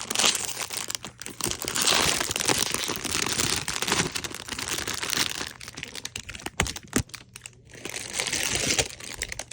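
Plastic wrap being pulled and torn off a book: continuous crinkling and crackling with a few sharp clicks.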